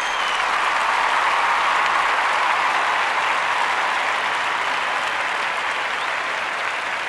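Applause from a crowd, swelling in the first second or two and then slowly fading.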